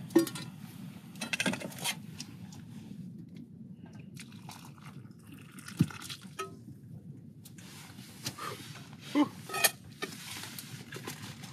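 Camp cookware handled: hot water from a steaming metal pot going into a mug and stirred with a spoon, with a few sharp metal clinks and knocks spread over several seconds, over a low steady rumble.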